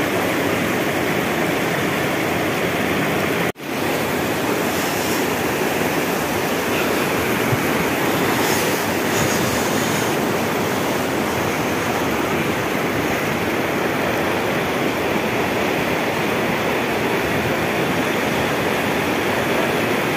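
Loud, steady rushing noise of fast-flowing water, with one brief drop about three and a half seconds in.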